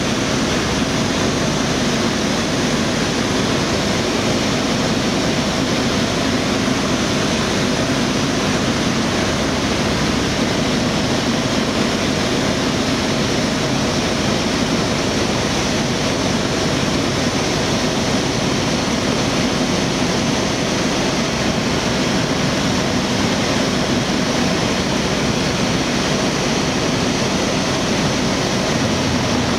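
Single-engine propeller light aircraft running steadily, engine and propeller noise mixed with rushing airflow as heard inside the cabin.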